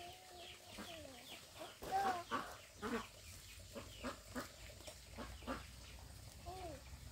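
Chickens clucking: a string of short, quick calls, with a longer drawn-out call that slides down in pitch during the first second.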